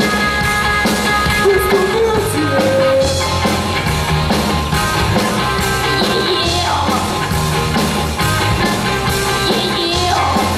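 A rock band playing live and loud: electric guitars, bass guitar, drums and keyboard, with a lead singer's voice over the band.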